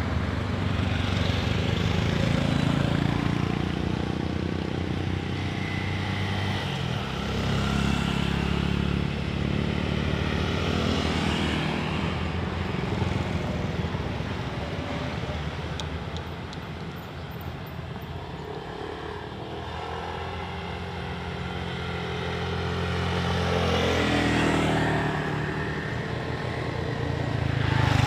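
Road traffic: engines of vehicles passing one after another, each swelling and then fading. A small car goes by close at the start, and a motorcycle comes near at the end.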